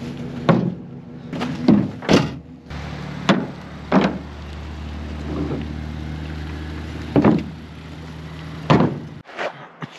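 A car battery and quart bottles of motor oil set down on a plastic pickup-truck bed liner: a series of sharp knocks and thuds, about seven in all, over a steady low hum that cuts off suddenly near the end.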